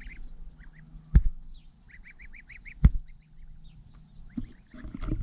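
Goslings peeping in quick runs of short, high calls while they graze. Two sharp knocks, about a second in and just before three seconds in, are the loudest sounds.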